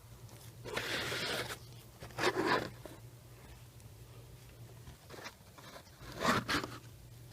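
Three short bursts of scraping and rustling as hands and a tool work at the brake light switch by the brake pedal, over a faint steady low hum.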